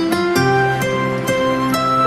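Soft instrumental background music: plucked notes, about two a second, ringing over held tones.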